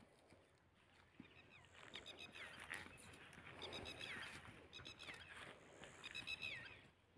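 Faint bird calls repeating about once a second, each a short phrase of quick high notes ending in a downward slur.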